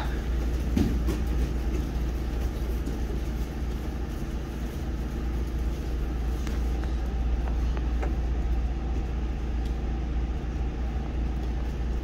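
Steady low rumble of room noise with no speech, broken by a few faint knocks as barefoot students move about on the mats.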